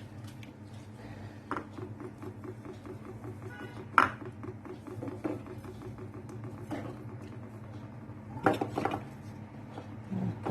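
Kitchen clinks and knocks of a knife, spoon and glass jar as lemons are quartered, filled with salt and packed into a jar to make preserved lemons. There are a handful of sharp knocks, the loudest about four seconds in, over a steady low hum.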